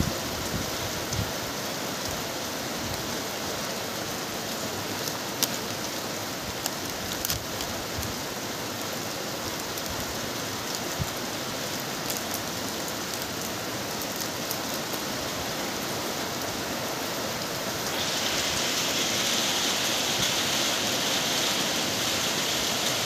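Heavy rain falling steadily: a dense, even hiss with scattered sharp ticks of nearby drops. About three quarters of the way through it grows louder and brighter.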